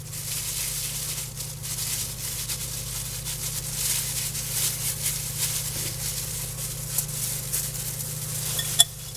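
Thin disposable plastic food-prep gloves crinkling and rustling as hands roll ground pork into balls and set them on a foil-lined baking sheet, over a steady low hum, with one sharp click near the end.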